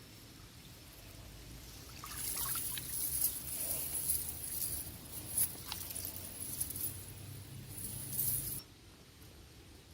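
Water splashing and trickling with small clicks, starting about two seconds in and stopping suddenly near the end.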